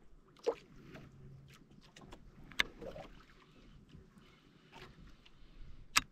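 A few sharp knocks and clatters aboard a small fishing boat, the loudest about half a second in, near the middle and just before the end, over a low hiss of water.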